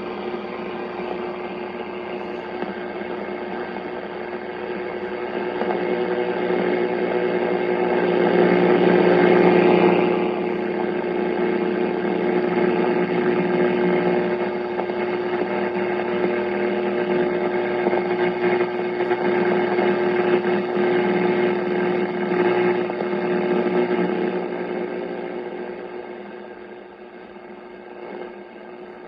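1939 Philco 40-120 tube radio's speaker hissing with static and a steady low tone, as it picks up the 160-meter band. The noise swells about a third of the way in and fades near the end.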